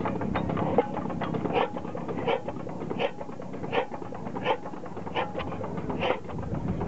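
Old single-cylinder stationary engine just started by hand and running slowly, each firing stroke a sharp puff about every three-quarters of a second over a steady low chuffing.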